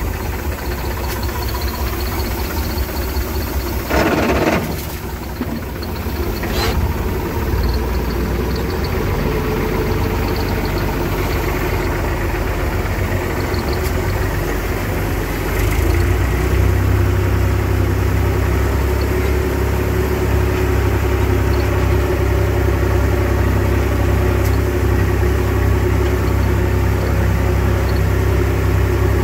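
IMT 539 tractor's three-cylinder diesel engine running steadily, heard from the cab, growing louder about halfway through. A short rush of noise comes about four seconds in, followed by a single click.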